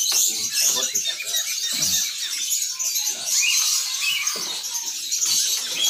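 Many small caged songbirds chirping and twittering together in a dense, high-pitched chatter, with a few low knocks from cages being handled.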